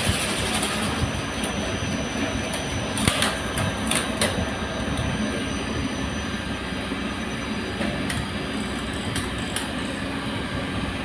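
Steady mechanical running noise of old elevator machinery, the motor-generator sets and geared hoist machines of the lift room, with a few sharp clicks scattered through it.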